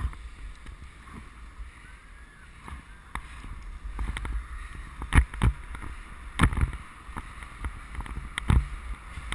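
Bicycle riding on a wet road: tyre hiss on the wet tarmac and wind rumbling on the microphone, with several sharp knocks in the second half.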